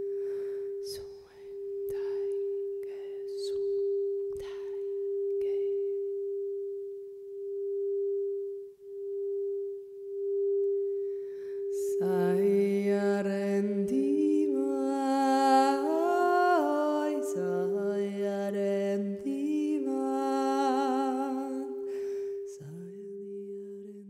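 Meditative music: a steady, gently pulsing drone tone with a few light struck notes at first. About halfway through, a voice comes in singing a slow, gliding wordless melody over the drone.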